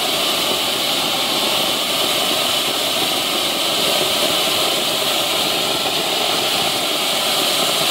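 Ajanta 'Jingle' golden ice-cream fountain firework burning with a steady hiss of its spark jet.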